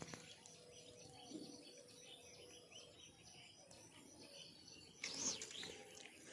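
Faint bird chirps over quiet outdoor ambience, with a louder burst of high calls about five seconds in.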